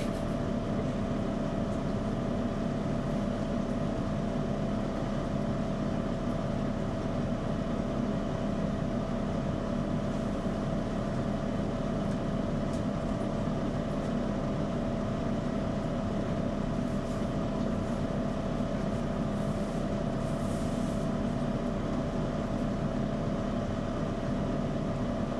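Hair dryer running steadily, a constant airy blowing with a steady motor hum.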